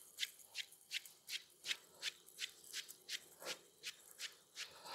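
Spinning reel being wound in, a faint regular ticking at about three ticks a second.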